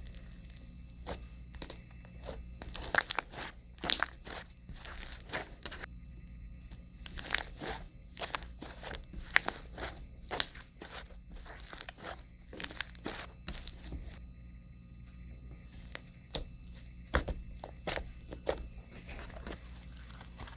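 Stiff, bead-filled slushy slime being squished and pulled by hand, giving irregular crackling clicks and crunches, with a short lull about two-thirds through.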